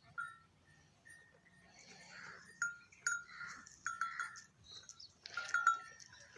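Goats in a farm pen, with a string of short, ringing clinks like small bells, most of them between about two and six seconds in.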